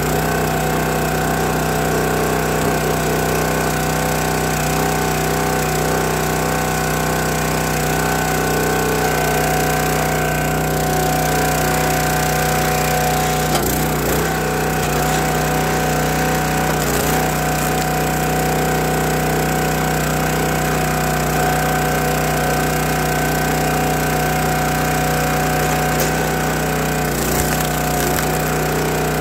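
Small gas engine of a County Line log splitter running steadily at constant speed, with a few sharp cracks of hardwood splitting and knocking on the beam.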